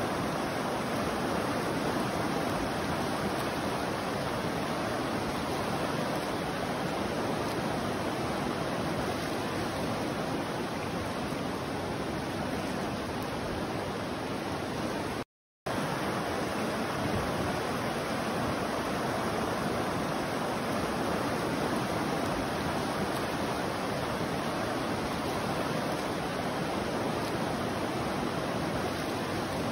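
The Ossipee River in flood: fast, high water rushing and churning past trees along the bank in a steady, unbroken noise. The sound cuts out completely for a fraction of a second about halfway through.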